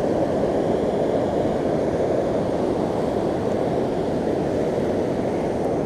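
Steady rushing of a fast river in flood, its high muddy water running hard past the bank.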